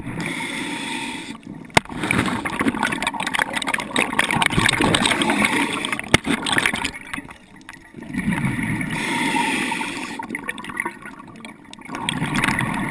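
Underwater bubbling and gurgling in bursts of several seconds with short quieter gaps, as from a diver's exhaled air bubbles. Two sharp clicks cut through, about two seconds in and about six seconds in.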